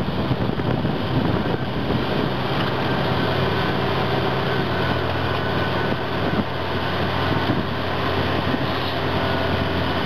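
Caterpillar D11N bulldozer's C27 ACERT V12 diesel engine running steadily under load as the dozer pushes a large pile of dirt with its blade.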